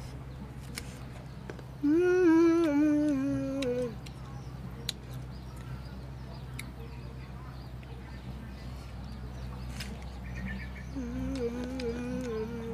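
A boy hums a closed-mouth "mmm" twice while chewing crunchy green mango: a loud hum about two seconds in that wavers and falls over two seconds, and a softer one near the end. A few faint clicks of bites and chewing and a steady low drone lie underneath.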